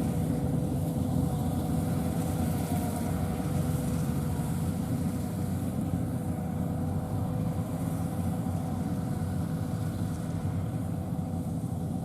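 Rice combine harvester running steadily: an even engine drone with a few steady higher tones above it.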